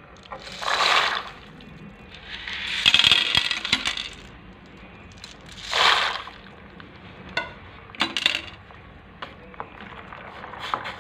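Dry macaroni tipped from a glass bowl into a steel saucepan of hot water, the hard pasta clattering and rattling in three bursts, the longest and loudest about two seconds in. After that, a wooden spoon stirring the pasta, with a few light knocks against the pot.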